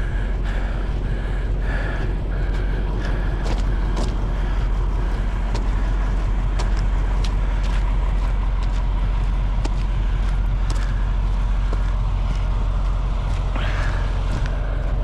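Footsteps in snow and slush at a walking pace, about two steps a second, over a loud steady low rumble.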